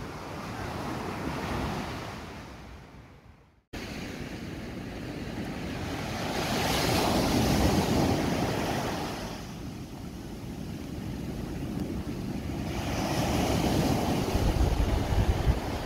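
Sea surf: small waves breaking on a sandy beach and washing up the shore in two slow swells about six seconds apart. The sound drops out briefly just under four seconds in, and wind rumbles on the microphone near the end.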